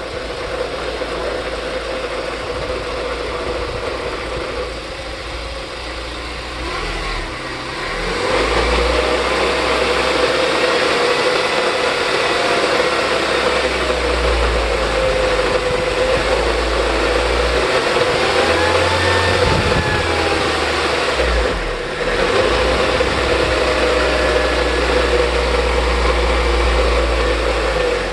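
R56 Mini Cooper on the move with its manual gearbox engaged, the engine running under a steady whine that grows louder about a third of the way in, with a brief drop in level later. The owner hears this noise only under acceleration after the clutch is released and suspects the transmission.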